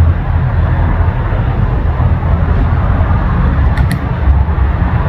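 Steady loud rushing noise with a low rumble, unchanging throughout, and a couple of faint clicks about four seconds in.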